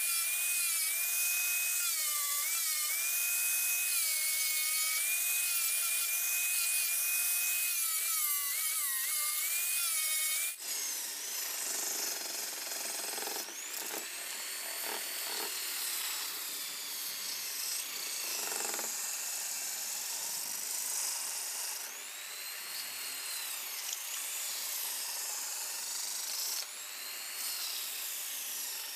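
Angle grinder with a sanding disc whining as it grinds a small piece of wood, its pitch dipping under load. About ten seconds in it gives way to an electric drill spinning a wooden dowel against hand-held sandpaper: a rubbing hiss under a motor whine that rises and falls with speed.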